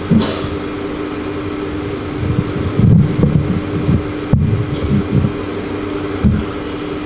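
A microphone on a stand being handled and adjusted, sending a cluster of low bumps and thuds through the sound system in the middle, with one more bump near the end. Underneath, a steady electrical hum and the whir of an electric fan.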